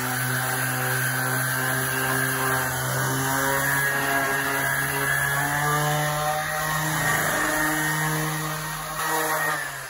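Electric random orbital sander running on softwood timber, sanding a batten down flush; its steady whine creeps up a little in pitch, then cuts off just before the end as the sander is switched off.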